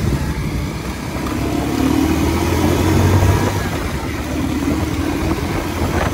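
A motor vehicle's engine running with a steady low drone, over a rumbling noise.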